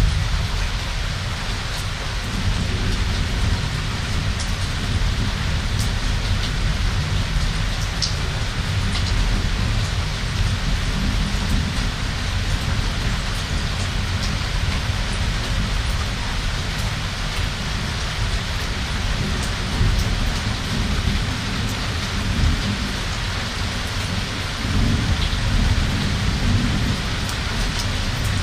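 Thunderstorm: steady rain with thunder rumbling low beneath it, and scattered drop ticks.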